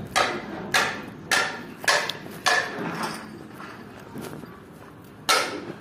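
Footsteps on dry dirt ground, walking at an even pace of a little under two steps a second, then pausing, with one more step near the end.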